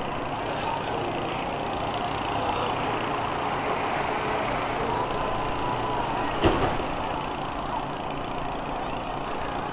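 Large vehicle engines of school buses running in a steady din, with one sharp bang about two-thirds of the way through.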